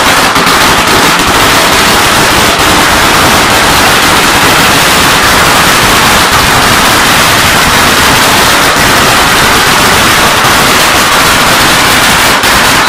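A long string of red firecrackers going off: countless small bangs running together into one continuous, very loud crackle without a break.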